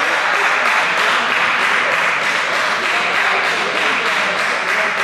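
Steady crowd din of spectators at a youth football match, many voices blending with some applause.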